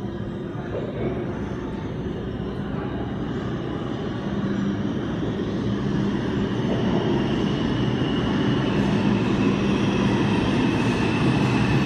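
An R142-series subway train approaching through the tunnel into the station. Its rumble grows steadily louder, and a high whine comes in over the second half.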